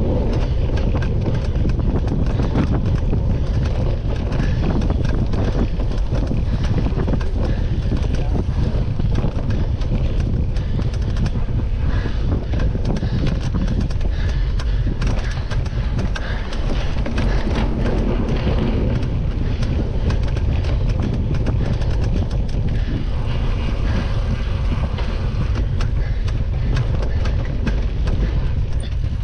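Cyclocross bike riding fast over grass and gravel, heard through a bike-mounted camera: steady wind buffeting on the microphone, with many small rattles and knocks from the bike on the rough ground.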